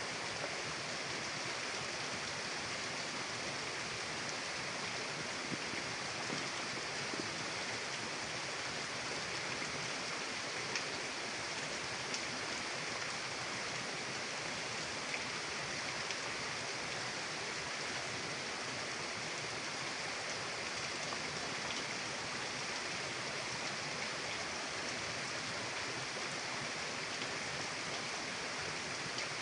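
Mountain river rushing over rocks: a steady, even hiss of flowing water, with a few faint splashes.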